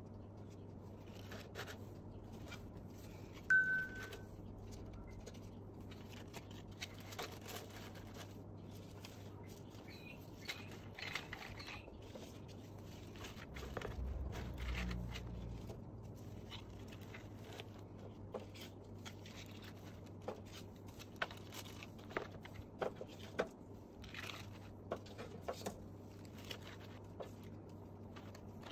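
Soft rustling and light clicks of hair bows, headband and crinkle-cut paper shred being handled and set into a cardboard gift box lined with tissue paper. One short high beep about three and a half seconds in, over a steady low hum.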